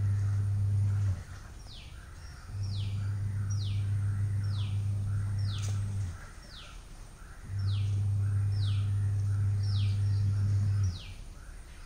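A bird calling over and over with a short falling note, about once a second, over a low steady hum. The hum drops out three times: about a second in, around the middle, and near the end.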